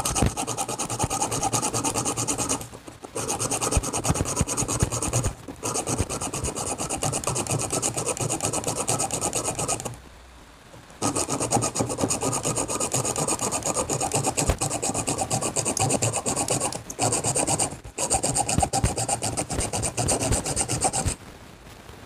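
Hand hacksaw cutting into a block of wood with rapid back-and-forth strokes, the blade rasping through the grain. The sawing comes in several runs with brief pauses, the longest about ten seconds in, and stops about a second before the end.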